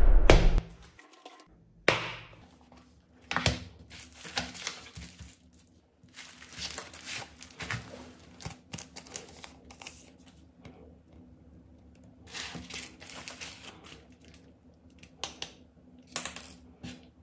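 Hands working on a smartphone's parts with small tools: irregular clicks and taps, with spells of scraping and crinkling like film or adhesive being peeled. A sharp click comes about two seconds in, and clusters of handling noise follow, over a faint steady hum.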